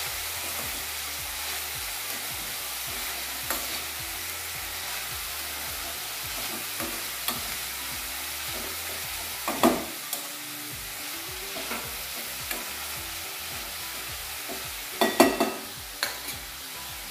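Shredded cabbage and capsicum sizzling in a kadai over a full gas flame while being tossed with a steel spoon: a steady frying hiss with the scrape of stirring and a few sharp knocks of the spoon on the pan, the loudest about ten seconds in and a quick cluster near the end.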